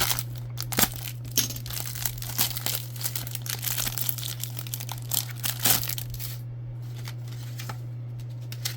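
Plastic wrapper of a trading-card pack crinkling and tearing as it is opened, dense crackles for about six seconds before it goes quiet. A steady low electrical hum underneath.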